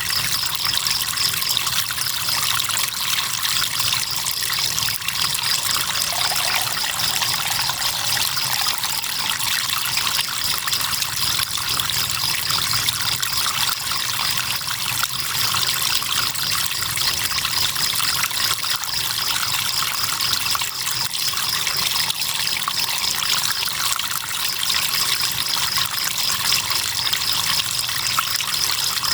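River water trickling steadily, with crickets trilling in a continuous, finely pulsed, high-pitched chorus over it.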